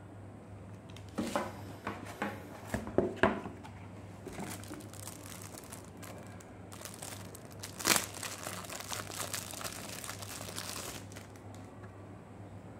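Clear plastic packaging crinkling as it is handled and pulled off an HDMI cable and a TV remote. Sharp crackles come in the first few seconds, then softer rustling, with one loud crackle about eight seconds in.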